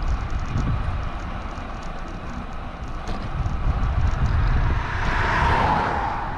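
Wind buffeting the microphone during a bike ride, with a motor vehicle passing on the road: its tyre and engine noise swells up about four and a half seconds in, peaks, and fades away near the end.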